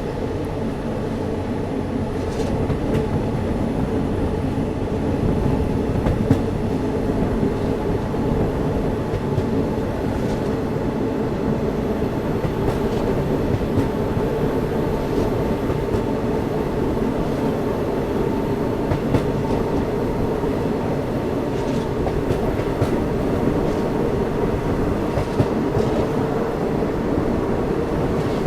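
Poorna Express passenger train running on the rails: a steady, loud rumble of the wheels and coaches, with scattered sharp clicks every few seconds.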